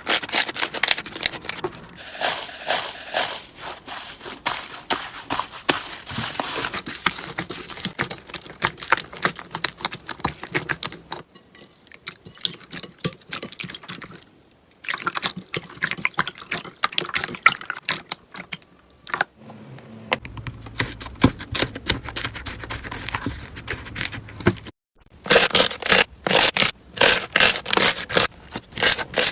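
Slime being squeezed and poked by hand, making rapid sticky pops and crackles. Near the end come louder pops, evenly spaced at about two or three a second.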